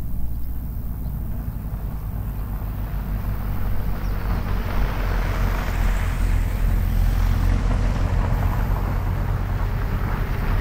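Outdoor ambience field-recorded with an XY pair of sE8 small-diaphragm condenser microphones: a steady low rumble under a broad rushing noise that swells from about four seconds in.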